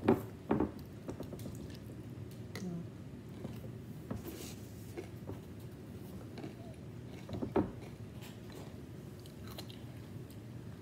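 Someone chewing a mouthful of cereal in milk, with a few sharp clicks near the start and again about seven and a half seconds in.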